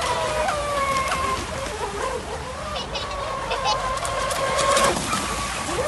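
Radio-controlled boat's motor running with a high-pitched whine whose pitch steps and glides as the throttle changes, over a wash of water noise from the hull and spray.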